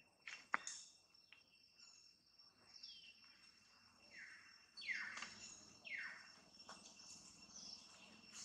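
Faint forest ambience: a steady high insect drone with a few short bird calls that sweep down in pitch around the middle, and a single sharp click about half a second in.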